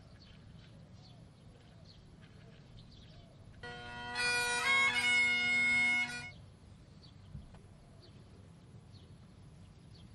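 Bagpipes play briefly: a steady drone under a few melody notes. It starts about three and a half seconds in and stops after about two and a half seconds.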